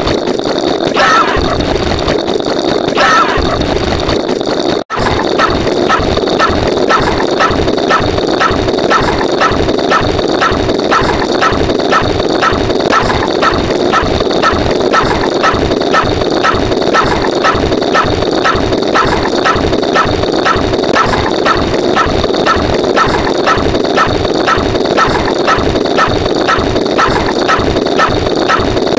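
A short sound effect repeated over and over as the count ticks up. At first it comes about every two seconds. After a brief cutout about five seconds in, it comes roughly twice a second, each repeat a sharp high blip over a steady noisy bed.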